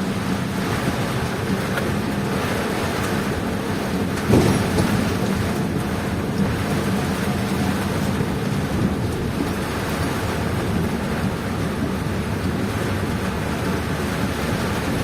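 Heavy rain and strong wind, a steady dense rush, with one brief louder thump about four seconds in.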